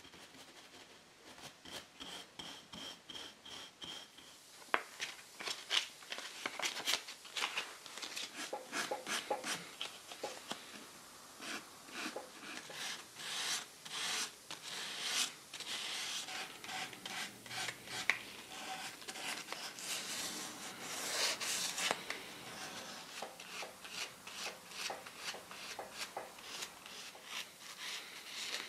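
A folded sheet of abrasive paper rubbed by hand over the finished wooden frame of an antique chair, in quick repeated back-and-forth scraping strokes. The strokes start about five seconds in, after a quieter opening.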